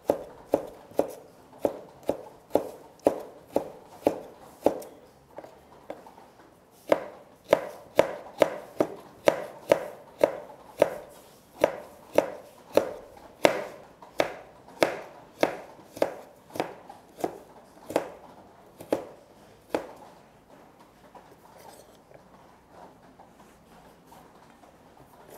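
Large kitchen knife chopping carrot on a wooden cutting board, in steady strokes about two a second. The chopping pauses for a couple of seconds about five seconds in, then runs on and stops about twenty seconds in, leaving only faint sound.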